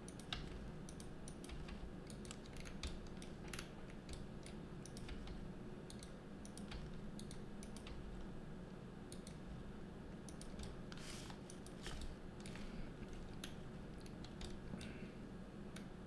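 Faint computer keyboard and mouse clicks, irregular sharp taps scattered throughout, over a low steady hum.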